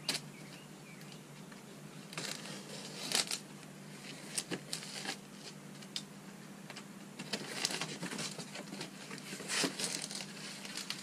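Cardboard shipping box being opened by hand: scattered scrapes, rustles and crinkling as the flaps are pulled open and the packing inside is handled.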